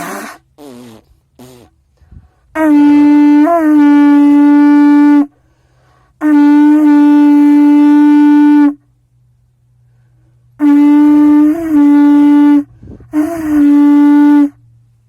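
Medium-large black animal-horn blowing horn. After three short toots, it is blown in four long, loud blasts on one deep note, each with a brief upward break in pitch.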